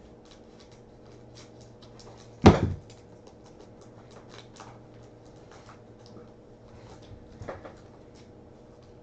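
Cardboard baseball cards being handled and sorted by hand: many faint clicks and rustles, with one loud knock about two and a half seconds in and a softer one about five seconds later.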